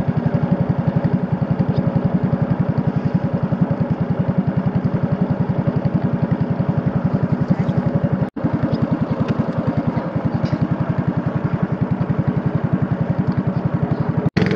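Small wooden long-tail boat's engine running steadily under way, with a fast, even pulse.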